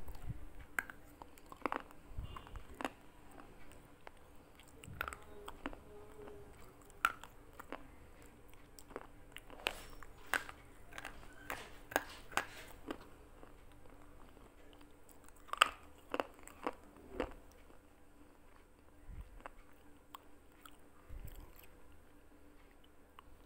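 Thick slate pencils being bitten and chewed: irregular sharp crunches and crackles, with the loudest crunch about fifteen seconds in.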